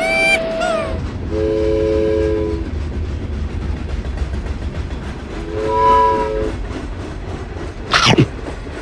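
Train horn sounding a three-note chord twice over the low rolling rumble of a train, opening with a brief high whistle and ending with a quick sweeping whoosh.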